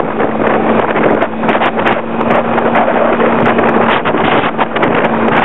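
Scooter engine running at a steady cruising speed with a constant hum, mixed with wind rushing over the microphone.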